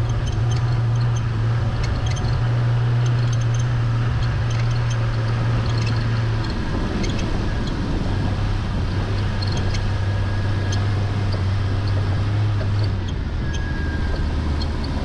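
Jeep Comanche Ultra4 race car's engine running at low revs as the car rolls slowly, heard from onboard as a steady low drone that drops a little in pitch about halfway through as the car slows.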